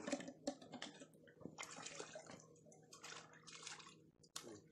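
Faint, light splashing and dripping of water at the lake's edge, coming in several short spells, with a sharp click just before the end.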